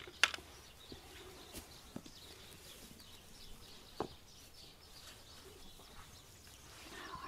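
Small birds chirping faintly, with a few sharp clicks, the loudest just after the start.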